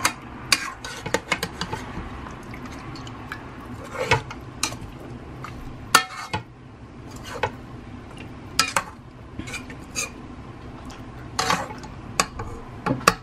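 Metal spoon stirring chicken feet in a thick sauce in a pressure cooker's inner pot, clinking and scraping against the pot at irregular moments, with a few sharper knocks around 6 s and near the end.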